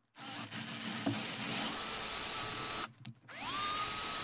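Cordless drill power-tapping a thread into the cast-iron top slide of a lathe, the motor running under load with a faint whine. About three seconds in it stops briefly, then starts again with a rising whine that levels off to a steady pitch.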